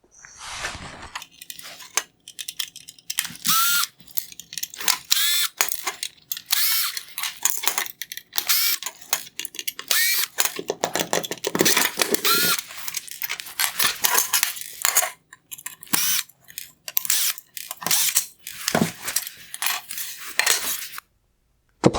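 Torx screws being undone from LED circuit boards inside a car headlight, with irregular clicks, scrapes and small metal clinks from the screwdriver, the screws and the plastic parts being handled, and a few short squeaks.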